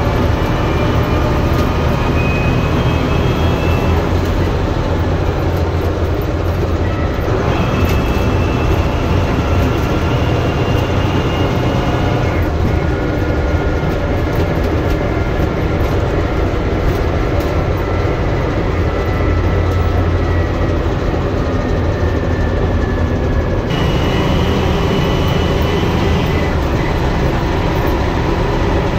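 Bristol VR double-decker's Leyland 501 six-cylinder diesel heard from inside the bus while it is driven, with a steady low drone. A whine rises as the engine pulls and drops back at each gear change, several times over.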